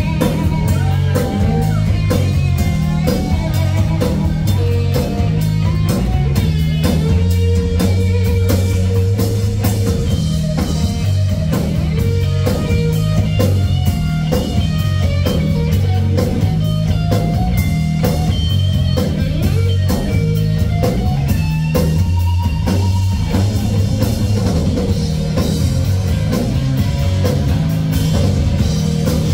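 Live rock band playing loud: electric guitars over a drum kit, with bending guitar lines and steady drum hits.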